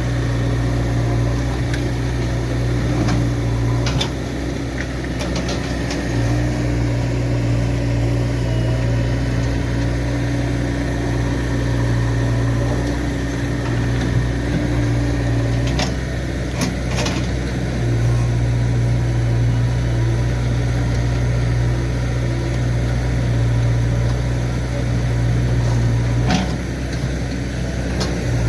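JCB 3DX backhoe loader's diesel engine running steadily at a working idle, its note dipping briefly several times, with a few sharp metallic knocks.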